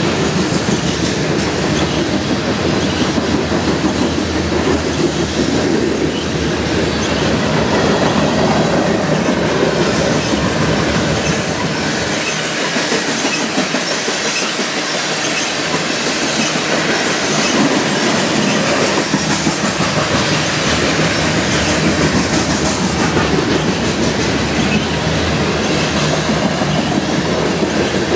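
Freight train of covered hopper cars rolling past close by, steel wheels clattering over the rails in a loud, steady rumble.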